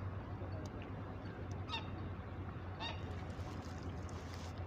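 Geese honking, two short calls about a second apart, over a steady low hum.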